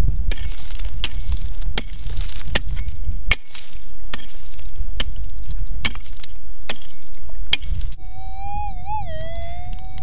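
A digging tool strikes stony ground about once a second, digging out a metal detector target that could be a gold nugget. About eight seconds in, the metal detector's steady threshold tone comes back and begins to waver.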